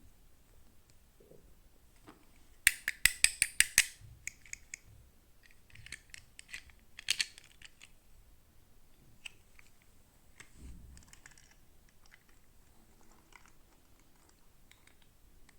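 Small plastic toy pieces and packaging being handled close up: a quick run of about eight sharp clicks, then a few scattered clicks and soft tapping.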